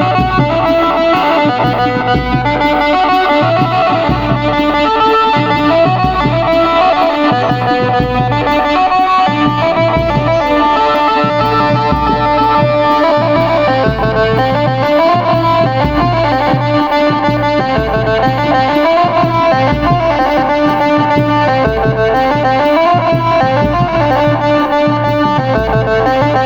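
Adivasi band music: an amplified plucked-string lead plays a quick, stepping melody over a steady drum beat.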